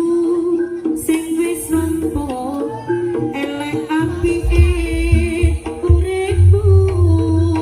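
Live jaranan music from a traditional East Javanese ensemble: a loud, held melody line that slides between notes, over hand-drum beats and metallic percussion.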